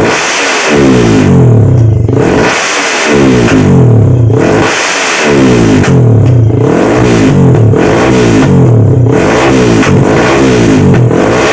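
Tuned Yamaha Vixion 150cc single-cylinder four-stroke engine with a Bintang full exhaust, revved again and again at standstill: repeated rises in engine speed dropping straight back, roughly once a second. The owner says the exhaust pipe leaks and thinks it would sound fiercer without the leak.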